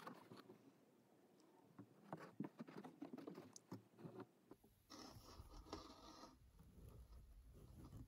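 Faint scratching and rustling of an embroidery needle and stranded floss being woven and drawn through cotton fabric in a hoop, a few small ticks and scrapes in the first half. From about halfway a low hum and a brief faint hiss come in.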